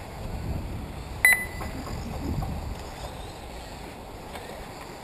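Low, uneven wind rumble on the microphone, with one short high electronic beep about a second in.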